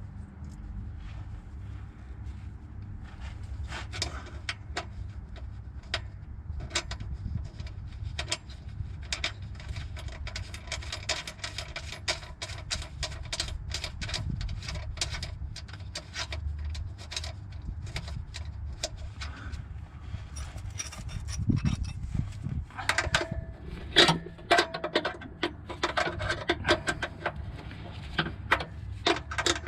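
Hand wrench working a nut on an exhaust-pipe mount under a car: many short metallic clicks and taps, with louder ringing clinks of tool on metal near the end.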